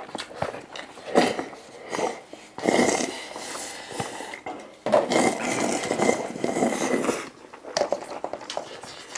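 Spicy cup noodles slurped in quick bursts, with chopsticks scraping and tapping against paper noodle cups. The longest slurp lasts about two seconds.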